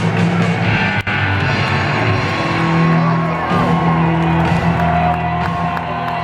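Rock music with guitar playing over the steady noise of a crowd, with a brief drop-out about a second in.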